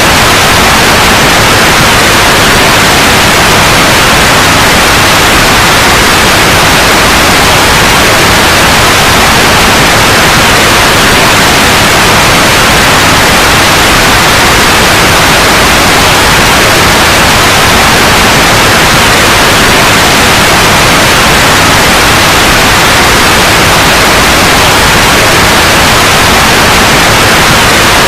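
Loud, steady synthetic white noise: an even, unchanging hiss.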